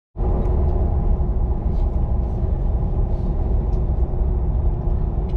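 Steady low rumble inside a KTX high-speed train carriage, with a faint steady hum over it and a few light ticks. It begins after a split-second gap.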